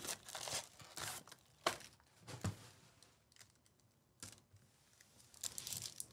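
Sports card pack wrappers being torn open and crinkled: a string of short, sharp rips and rustles, with a quieter gap in the middle and a flurry of crinkling near the end.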